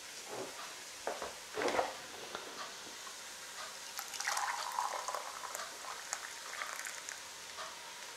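Mushrooms, leeks and red onions frying with a gentle sizzle in a pot, with a couple of soft knocks in the first two seconds.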